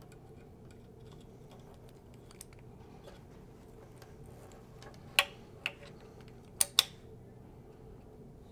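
A few sharp clicks and taps of hard parts as a Michell TecnoArm 2 tonearm is handled and set down onto the turntable's arm plate: two a little past halfway, then a close pair shortly after, over a low steady room hum.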